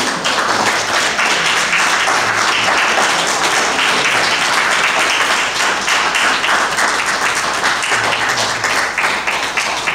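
Audience applauding: steady, dense clapping from a roomful of people, easing a little near the end.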